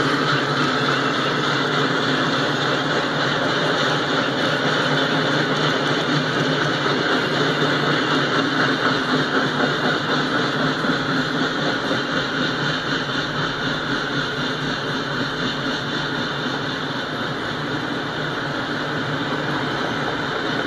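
Freight train autorack cars rolling past at steady speed: steel wheels on the rails making a steady rumble and rattle, with a rhythmic pulsing clatter partway through.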